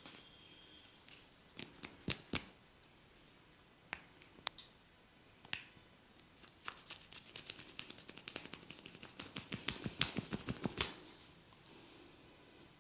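Barber's hands working on a head during a massage, making sharp snapping clicks: a few scattered snaps at first, then a quick run of several a second that stops shortly before the end.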